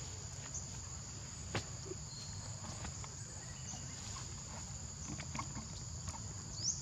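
Steady high-pitched drone of insects in the vegetation over a low rumble, with a sharp click about a second and a half in and a short rising chirp near the end.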